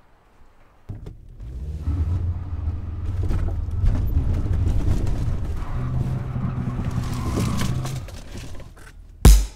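Car engine running unevenly and faltering, a low rumble that comes in about a second in, shifts in pitch partway through and dies away about eight seconds in: the engine failing. A loud electronic drum beat starts just before the end.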